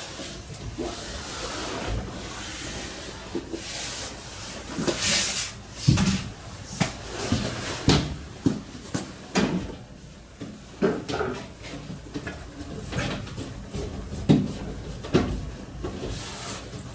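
Irregular knocks, clunks and rubbing from hand work on aluminium framing and wall panels.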